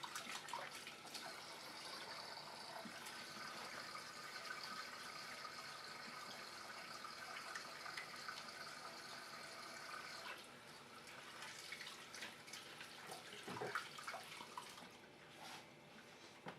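Water running steadily from a kitchen tap, shut off about ten seconds in, followed by a few light knocks and scrapes.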